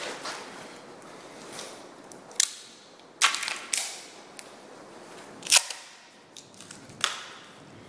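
Handling noise from a wooden hammer handle: about five sharp clicks and knocks, irregularly spaced, over a quiet background.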